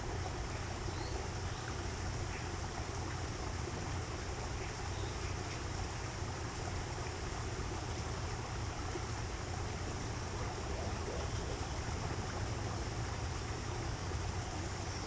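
Steady rushing of water running in a small aviary stream, with a few faint, brief bird chirps scattered through.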